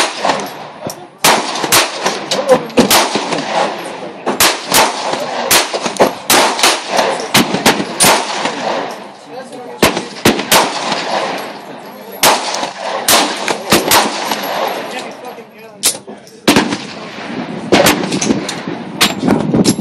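Handgun firing over and over: dozens of sharp shots at uneven spacing, sometimes several a second, with a brief lull about sixteen seconds in.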